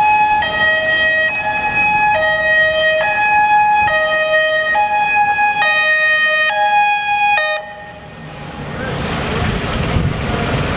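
Dutch fire engine's two-tone siren, alternating between a low and a high note a little under once a second, cutting off about seven and a half seconds in. The MAN fire truck's engine and tyres then grow louder as it approaches.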